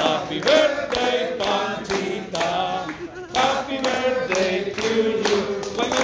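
A group of voices singing a birthday song together, kept in time by steady hand clapping about twice a second.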